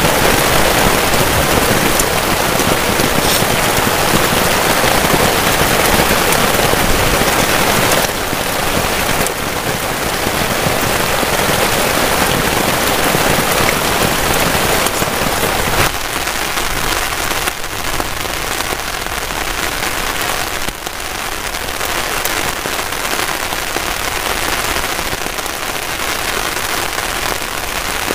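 Heavy rain falling steadily on a tarp shelter and the grass around it, a dense continuous hiss. It drops a little in level twice, about a third and about halfway in.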